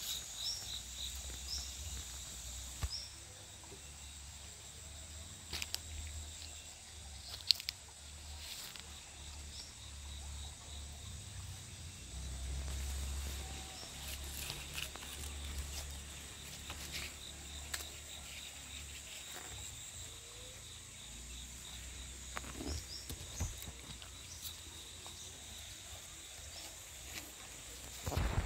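Quiet outdoor ambience: a steady high insect drone, with a few brief chirps, scattered small clicks and rustles, and a low rumble that swells and fades.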